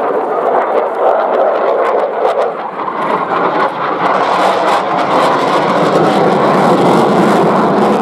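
Jet noise from an F-4EJ Kai Phantom II's two J79 turbojet engines as the fighter flies by during a display, loud and steady, growing louder and brighter about halfway through.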